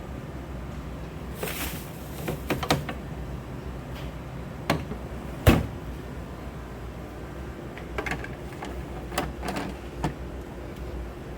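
Scattered clicks and knocks of an automatic grind-and-brew coffee machine's door and parts being handled, over a steady low hum. The loudest knock comes about five and a half seconds in.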